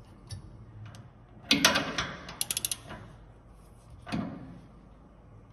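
Ratchet wrench on a bolt of a honey extractor's belt drive: a metal clank about a second and a half in, a quick run of ratchet clicks just after, and another knock later.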